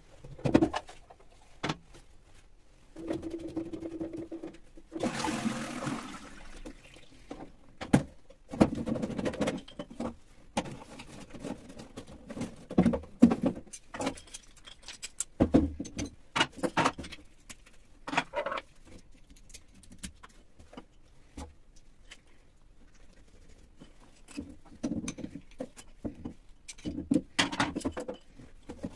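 Plastic toilet cistern parts handled during a fill valve change: irregular clicks, knocks and scraping of plastic, with a longer rasping scrape about five seconds in.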